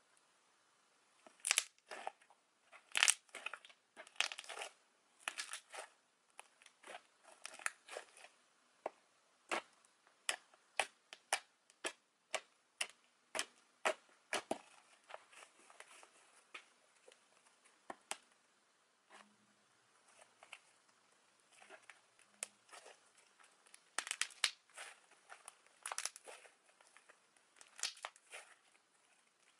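Fluffy slime being poked, pressed and stretched by fingers, giving irregular sticky crackles and small pops as air pockets burst. The crackling is sparser for a few seconds past the middle.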